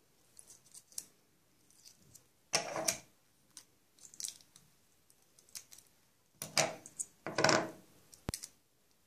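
Clear adhesive tape pulled off its roll in three short noisy pulls, one about two and a half seconds in and two close together near the end. Between them come light clicks from handling and a snip of scissors.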